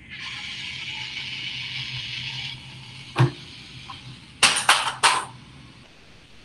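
Battery-powered tumble buggy toy car whirring steadily as its motor drives it along the table for about two and a half seconds, then a knock, and a few seconds in a quick run of loud clattering impacts as the buggy veers off the table edge and falls.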